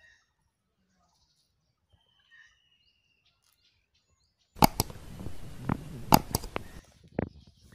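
A faint, long, slightly falling whistled bird note over near silence, then about four and a half seconds in a sudden burst of rustling with sharp clicks and knocks for about two seconds, followed by a few scattered clicks: a bamboo fishing rod being picked up and cast among dry grass and leaves.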